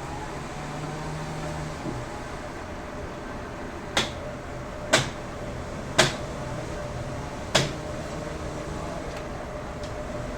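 A steady mechanical hum with four sharp knocks, roughly a second apart, in its second half. The low part of the hum stops about two seconds in.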